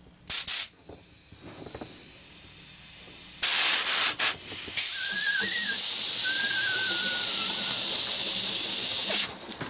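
Compressed air from an air compressor hose hissing as it is blown into the water heater's plumbing to force out clogging sediment: a brief burst, a quieter rising hiss, then a loud steady blast for about five seconds with a faint wavering whistle, cutting off near the end.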